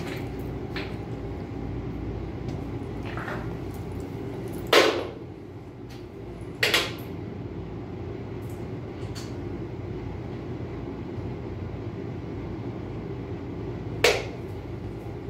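Sharp knocks and clunks of work on a steel battery rack, three loud ones about 5, 7 and 14 seconds in, with fainter clicks between, over a steady low hum.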